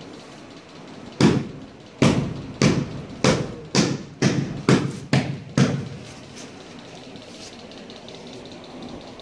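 A run of about nine sharp knocks, roughly two a second, each with a short ring, then a few faint ones before they stop about six seconds in.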